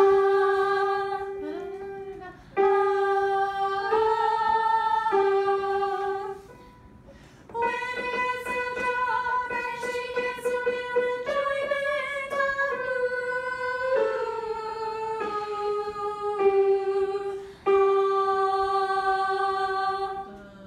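Girls' voices singing together in unison, in phrases of long held notes with short breaks between them.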